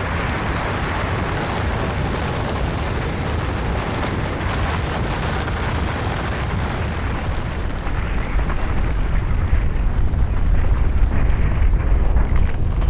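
Avalanche sound effect: a continuous heavy rumble. The deep low rumble grows louder about eight seconds in, while the higher hiss fades back.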